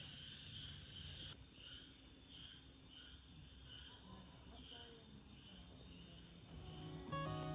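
Crickets chirping faintly: a steady trill that, about a second and a half in, breaks into separate chirps about twice a second. Acoustic guitar music comes in near the end.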